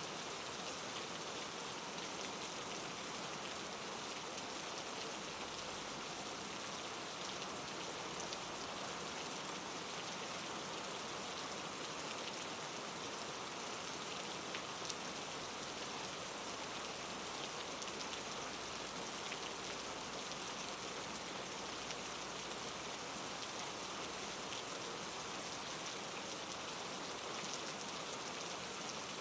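Steady rain falling, a constant hiss with faint scattered drop ticks.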